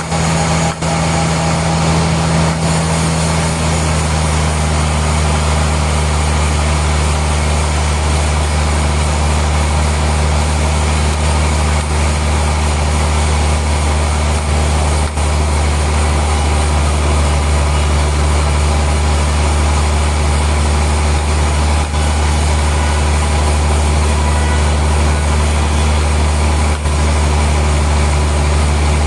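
Sawmill machinery running: a loud, steady drone with a deep hum under a wide noisy wash, the low hum growing stronger about three seconds in.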